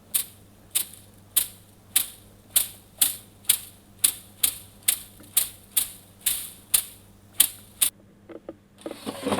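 A regular run of sharp mechanical clicks, about two a second, each with a bright ringing edge. They stop about eight seconds in, and a few softer, quicker ticks follow.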